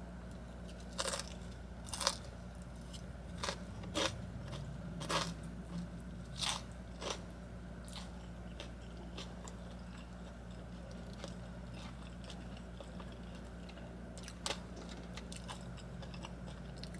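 A person eating close to the microphone: sharp bites and chewing crunches, a run of them through the first seven seconds and a few more near the end, over a low steady hum.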